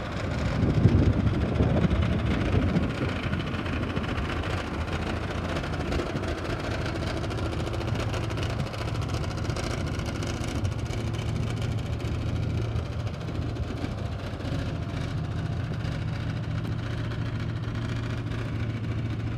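A 1986 Chevrolet C60 medium-duty truck engine idling steadily, with wind gusting on the microphone for the first few seconds.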